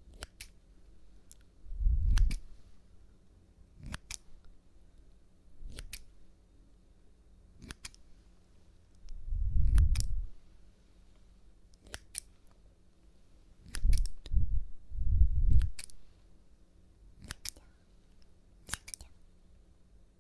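Scissors snipping close to the microphone, one crisp snip about every two seconds. A few dull low thumps come in between, the loudest about two seconds in and around the middle.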